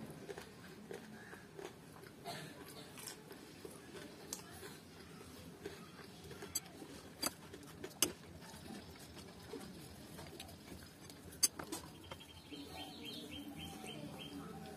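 Close-up eating sounds: fingers working and squishing biryani rice against a plate, with chewing and a few sharp mouth or finger clicks. Near the end comes a quick run of high ticks.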